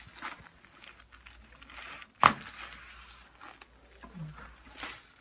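Rustling and crinkling as a patient turns over onto her back on a chiropractic treatment table, with one sharp knock about two seconds in.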